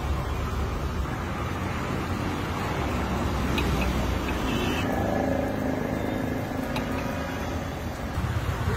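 Street ambience dominated by the steady rumble of passing road traffic.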